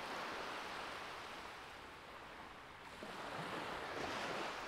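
Sea surf washing on the shore: a soft, even hiss that eases off in the middle and swells again near the end.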